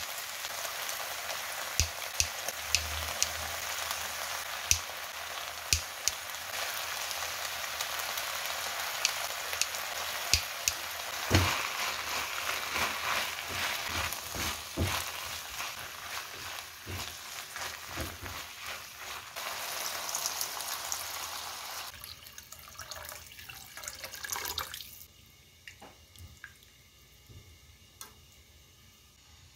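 Beef and seaweed sizzling in a nonstick wok as they are stir-fried, with tongs and a silicone spatula scraping and clicking against the pan. Near the end the sizzle dies away once the pan is filled with water, leaving faint dripping and bubbling.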